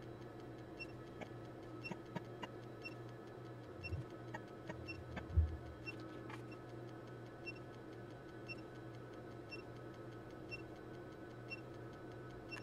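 Low-level electronics bench noise: a steady faint hum with quiet ticks repeating about once a second. A few soft knocks come around 4 and 5.5 seconds in, the second a dull low thump.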